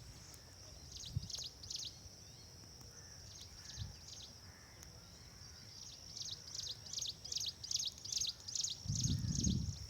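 Small birds chirping in quick falling notes, a few at first, then a steady run of about two a second over the last few seconds, above a constant high hiss. A low rumble comes briefly near the end.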